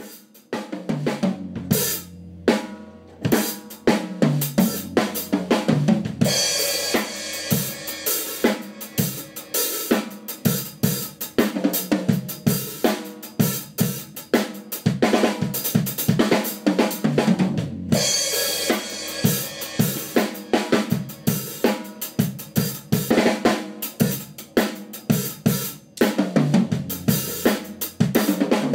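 Tama acoustic drum kit with Sabian cymbals played live in a jam: the first few seconds are mostly toms and kick drum, then cymbals and hi-hat come in with a busy beat about six seconds in. The playing breaks off for a moment about two-thirds through and picks up again.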